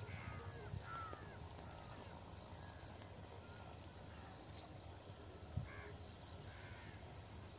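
An insect trilling in fast, even, high-pitched pulses, breaking off about three seconds in and starting again near the end. A few short bird calls and a low rumble sit under it.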